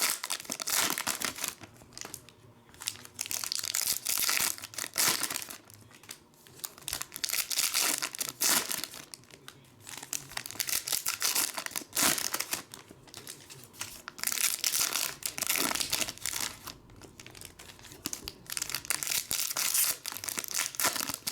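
Trading-card pack wrappers being torn open and crumpled, in irregular crinkling bursts one after another.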